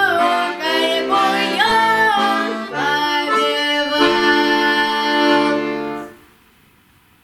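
The end of a folk song on accordion, with a singing voice: a few gliding sung notes, then a long held final chord that stops about six seconds in, leaving only faint room noise.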